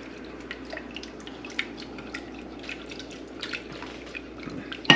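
Roux-based milk and cheese sauce simmering in a pan on medium heat, with small irregular pops and ticks of bubbles. A single sharp knock comes right at the end.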